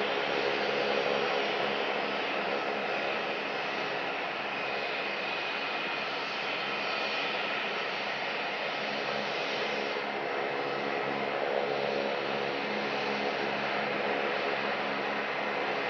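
Airbus A321's twin IAE V2500 turbofan engines running at taxi power, a steady whine with several held tones and no change in level.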